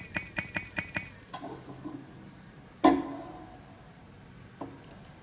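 Sound-design effects for animated on-screen text: a quick run of crisp clicking ticks, about five a second, that stops about a second in, then one sharp hit with a ringing tail about three seconds in and a faint click near the end.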